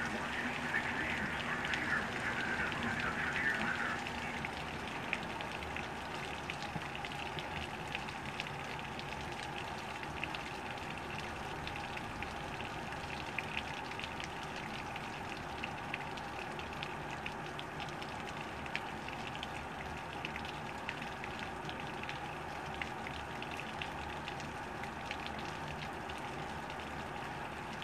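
Steady hurricane rain falling on lawns, pavement and standing floodwater, a dense hiss of many small drop ticks. A faint pitched sound runs underneath for the first four seconds, then stops.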